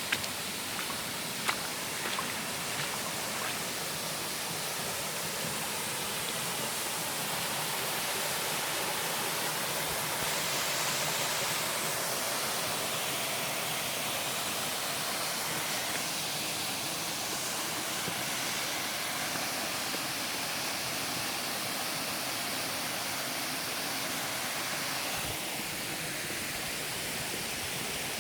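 A river swollen in flood, its fast water rushing past in a steady, unbroken noise.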